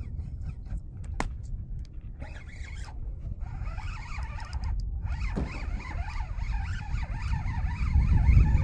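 A fishing reel buzzes in a continuous zipping run from about three seconds in, as a hooked fish pulls against the rod. Steady low wind rumble on the microphone runs underneath.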